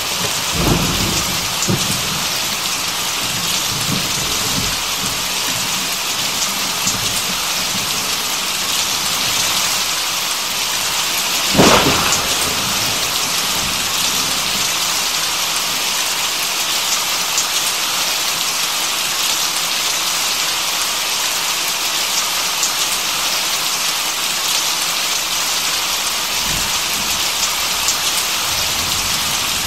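Rain falling steadily in an even hiss, with thunder rumbling away in the first few seconds and a sharp thunderclap about twelve seconds in.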